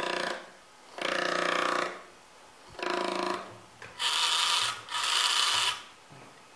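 Small 1000kv brushless motor of a homemade RC boat spinning its plastic propeller in five short throttle bursts with quiet gaps between them, the last two higher and brighter in pitch.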